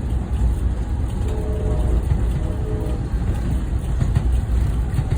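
Passenger train running along the track: a steady low rumble of the moving carriage, with a faint high tone that comes and goes about a second in.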